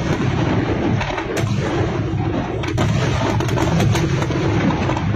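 Fireworks display: a continuous low rumble of shell bursts with sharp cracks now and then, one of the sharpest about a second and a half in.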